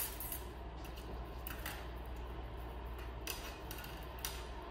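Armature wire being wrapped and twisted by hand around a wire armature: faint, scattered metallic clicks and scrapes, about half a dozen over a few seconds, over a low steady hum.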